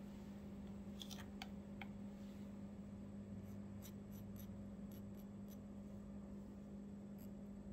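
A steady low hum with a few faint light ticks and scratches of small hand work, mostly in the first two seconds.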